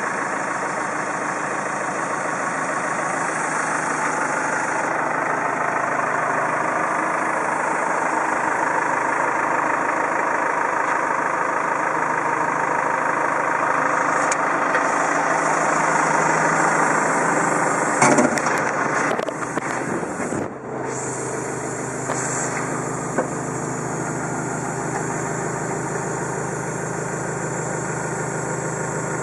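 Manitou MRT 1840 rotating telehandler's turbo diesel engine idling steadily, with a short clatter of knocks about two-thirds of the way through.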